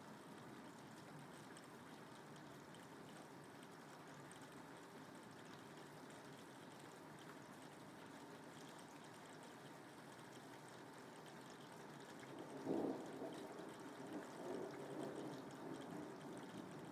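Steady rain falling. About three quarters of the way in, a sudden louder roll of thunder breaks in and rumbles on in uneven swells for a few seconds.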